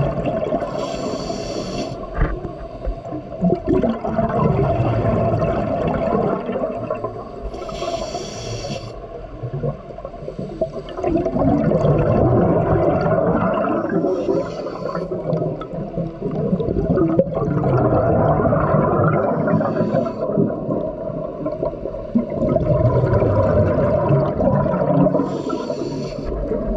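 Scuba breathing heard underwater. A short hiss of the regulator on each inhalation comes about every six seconds, with the rumbling gurgle of exhaled bubbles between.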